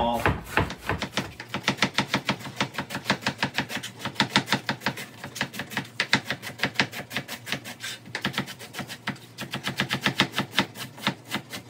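Kitchen knife rapidly slicing cabbage thin on a plastic cutting board: a quick, even run of knife strikes against the board, several a second.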